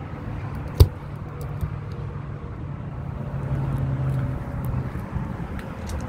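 Steady low outdoor rumble like distant road traffic, with one sharp knock about a second in.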